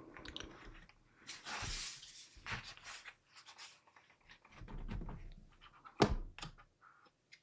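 Handling noises from a gaming laptop being moved about on a bench: a brief rubbing, soft knocks, and one sharp knock about six seconds in as it is set down.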